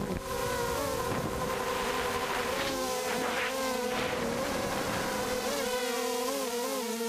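ZMR250 miniquad's brushless motors and propellers whining in flight, heard from the camera on board, the buzzing pitch wobbling up and down with quick throttle changes. Rushes of air come through around the middle.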